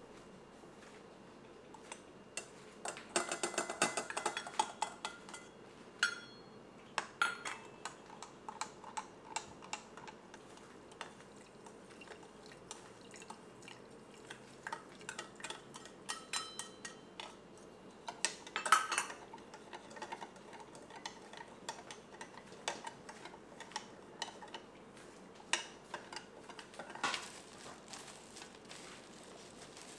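A metal spoon clinking and scraping against a glass pitcher and a small stainless steel dish as powder is spooned into water and stirred, in scattered clinks with a busier cluster early on and another around the middle. Near the end, gloved hands mix chopped pork in a stainless steel bowl.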